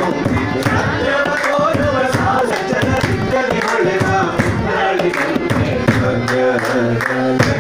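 Group of voices singing a devotional song, with hands clapping in a steady beat.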